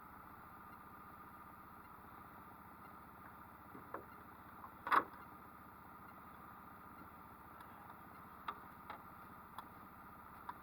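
Boat's outboard motor running steadily, with a few short knocks, the loudest about five seconds in.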